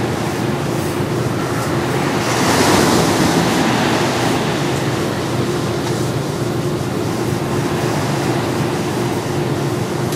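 Ocean surf washing onto a sandy beach, a steady rush of waves with one wave breaking louder about two to three seconds in.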